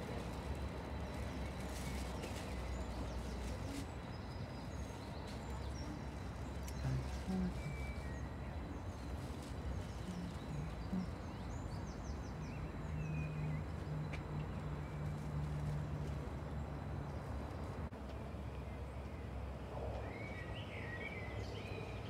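Outdoor ambience: a steady low rumble with faint scattered bird chirps, and a low steady hum for a few seconds past the middle.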